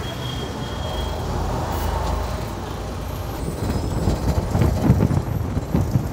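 KSRTC bus on the move: a steady low engine drone with road noise. From about halfway through, a run of irregular low thumps and buffeting comes in, louder than the drone.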